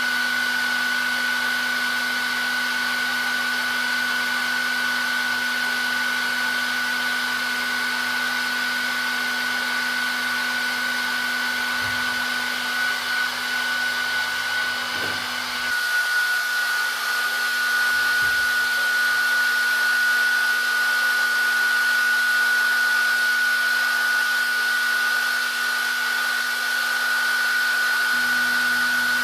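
Electric hair dryer running steadily: a constant blowing rush with a high fan whine. A little past halfway the low hum drops away and the whine shifts slightly, then the hum comes back near the end.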